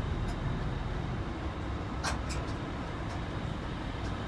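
Steady low rumble of a passenger ferry's engines under way, with a couple of short clicks about two seconds in.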